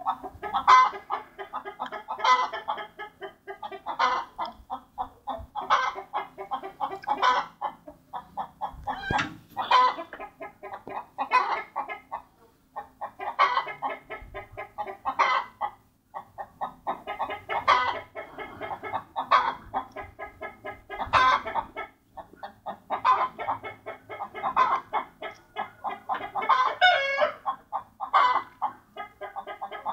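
Repeated short animal calls, one about every second or so, going on without a break.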